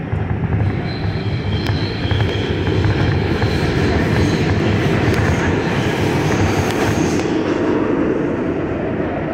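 R142A subway train heard from inside the car, running at speed past a station and into the tunnel: a steady, loud rumble of wheels on rails that grows louder about three seconds in. Faint high-pitched tones ring through it in the middle.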